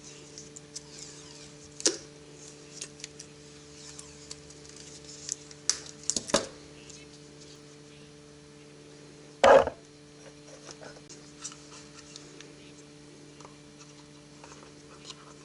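Scattered clicks and knocks of objects being handled, the loudest a single knock about two-thirds of the way through, over a steady low hum.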